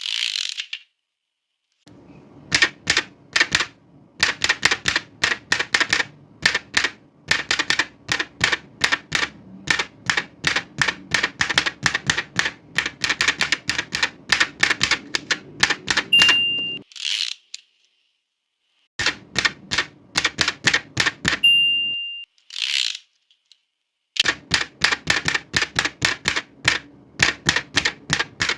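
Old manual typewriter being typed on: fast runs of clacking keystrokes with short pauses. Twice, about 16 and 21 seconds in, the end-of-line bell rings and the carriage is returned with a brief ratcheting swoosh.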